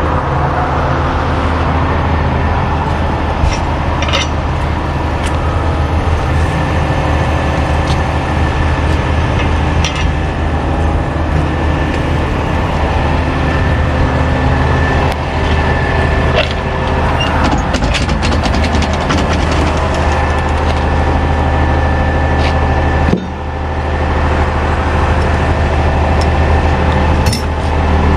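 Medium-duty wrecker's engine running steadily at a constant speed, with scattered sharp clicks. The engine sound breaks off briefly about 23 seconds in and picks up again.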